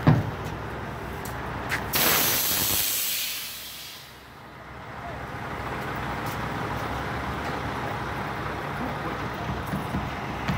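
A burst of compressed air hissing from a flatbed semi-truck's air brakes about two seconds in, lasting about a second and fading away. A steady low rumble follows.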